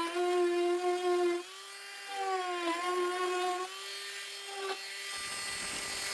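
Small high-speed rotary tool running as a steady whine, its pitch dipping briefly as it bites while grinding sharp edges smooth.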